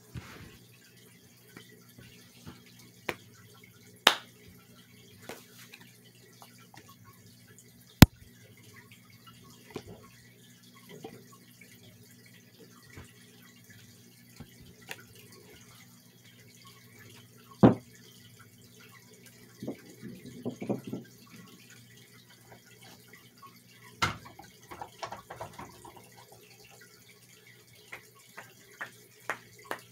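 Scattered sharp clicks and knocks at irregular intervals, the loudest about eight seconds in, over a faint steady low hum.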